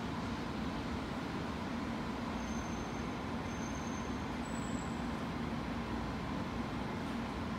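Steady low rumble and hiss of railway station ambience at the end of a platform, with a faint high whine for about two seconds midway.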